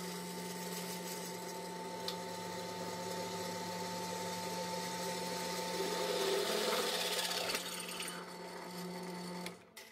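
JIB DP15VL floor-standing drill press running at 600 rpm, with a 10 mm twist drill cutting through the 4.5 mm wall of a steel pipe without trouble. The steady motor hum carries a grinding cutting noise that grows louder about five seconds in and stops as the bit breaks through about two and a half seconds later. The motor runs on alone until it drops away near the end.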